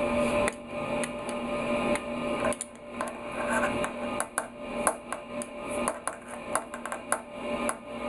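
Irregular clicks and knocks of a small air-horn compressor's housing being handled and worked open by hand, over a faint steady hum.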